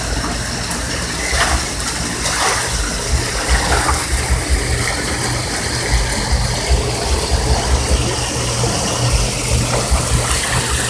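Floodwater rushing in a steady wash, with an uneven low rumble underneath.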